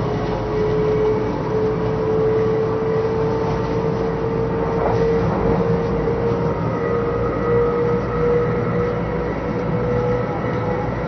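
JR West 500 series Shinkansen heard from inside the car at speed: a steady running rumble and rush of noise, with a whine that rises slowly in pitch as the train gathers speed.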